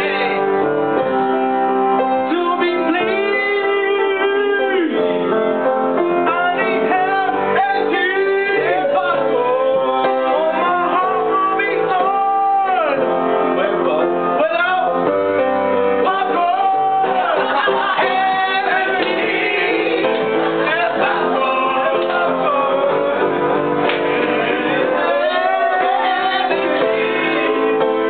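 A song: voices singing a melody over steady instrumental backing.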